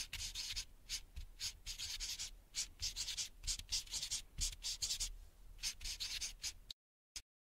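Felt-tip marker strokes on paper, a quick run of short separate scratches as letters are drawn. They stop near the end, followed by one brief tick.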